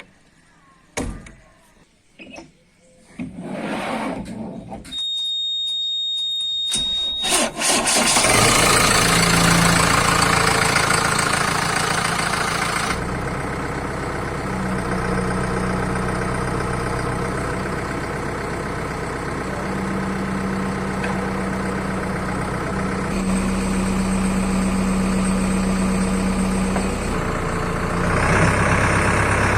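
A few knocks and a short high beep, then a vehicle engine starts about seven seconds in and runs steadily, its pitch shifting a little.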